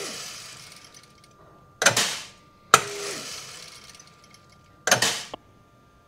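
FOSS grain analyser running a moisture test on a grain sample: grain rattles and hisses as it falls through the machine, with several sharp mechanical clacks, three of them close together near the end, over a faint steady whine.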